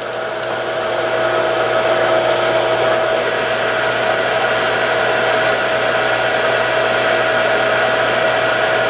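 Water pump motor running steadily with a constant whine and hum, having just caught and begun pumping water. It gets slightly louder over the first second or so.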